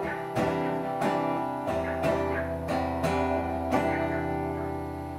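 Acoustic guitar strummed in an unhurried pattern, a chord about every half second. About three and a half seconds in it settles on a final chord that is left to ring and fade, closing the song's instrumental outro.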